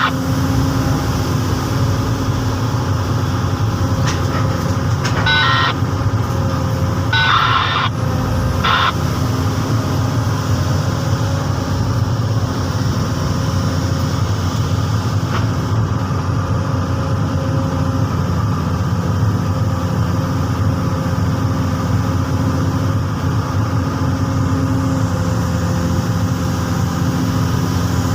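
Komatsu PC200 hydraulic excavator's diesel engine running steadily with a low, even hum. A few short high-pitched sounds stand out above it about five to nine seconds in.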